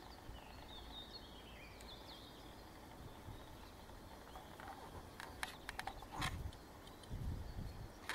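Faint birdsong, then a run of short clicks and crackles about five seconds in, with a few low thuds: roe deer moving and browsing in dry undergrowth.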